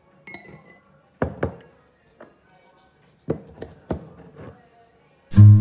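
A few sharp knocks in two short clusters, two then three, from hard objects being handled. Near the end, strummed acoustic guitar music starts.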